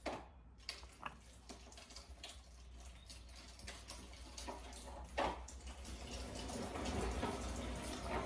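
Steel mower blade handled and set down onto a cone-type tabletop blade balancer to check its balance after sharpening: scattered light metal clinks and scrapes, the sharpest one about five seconds in.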